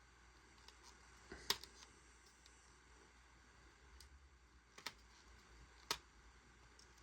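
Mostly near silence, broken by three short clicks of hard plastic figure parts being handled, the first about a second and a half in and two more near the end.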